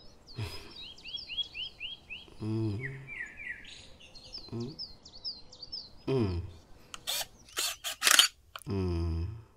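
Small birds chirping in quick repeated series. About seven to eight seconds in come several sharp clicks of a DSLR camera shutter.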